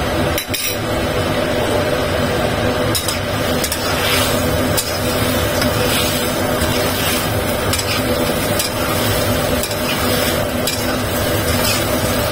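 Metal spatula scraping and knocking irregularly against a wok while stir-frying scallops and snow peas in sauce, with a light sizzle. A steady hum runs underneath.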